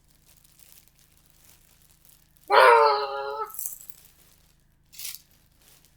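A child's voice calls out once, a drawn-out pitched cry lasting about a second, a couple of seconds in. About five seconds in, a brief rattling shake.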